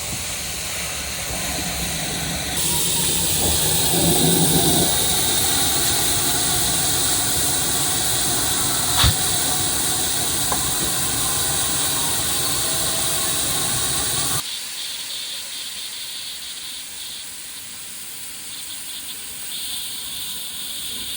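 Steam locomotive hissing steam, stronger from about three seconds in, with a single sharp clank near the middle; the loud hiss cuts off suddenly about two-thirds of the way through, leaving a fainter hiss.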